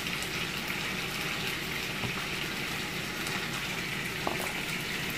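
Steady sizzling hiss of chicken frying in a pan, with a couple of faint clicks.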